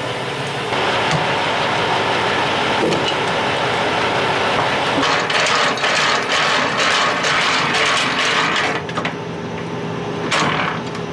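Semi-truck engine running under a loud rushing hiss with rapid crackling that swells about a second in and eases near the end, with a couple of short sharp bursts of noise at the close.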